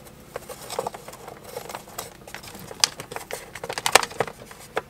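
Electrical cables being pushed through a drilled hole and channel in a wooden wall panel: irregular rustling and scraping of the wires against the panel, with sharp clicks about three seconds in and again a second later.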